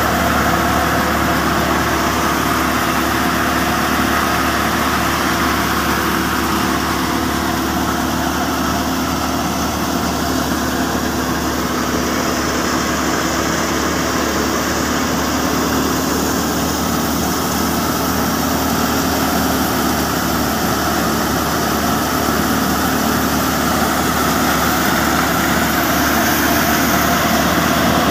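A New Holland 480 tractor running steadily under load, belt-driving a grain thresher, with the engine and the thresher's spinning drum and pulleys blending into one continuous machine noise.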